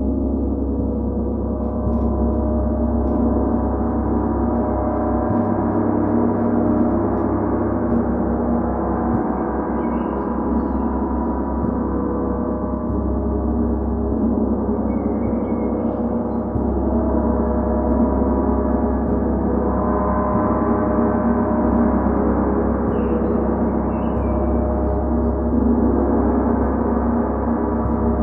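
Large gong sounding continuously: a dense, unbroken wash of many overlapping ringing tones.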